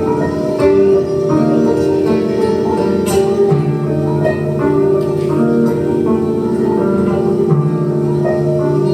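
Live instrumental music: a steady held drone under sustained pitched notes that change every second or so.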